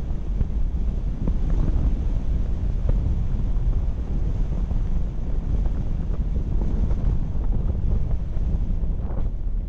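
Wind buffeting the microphone of a camera on a moving car: a steady low rumbling roar, with faint vehicle road noise beneath it.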